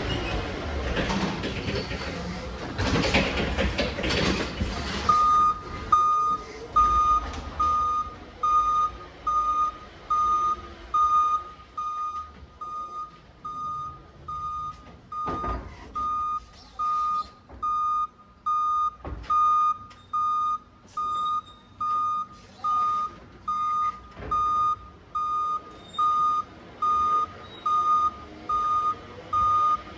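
Forklift backup alarm beeping steadily while the truck reverses with a load, a single high tone pulsing about four times every three seconds. It starts about five seconds in, after a stretch of louder forklift motor and mechanical noise, and a couple of sharp knocks come partway through.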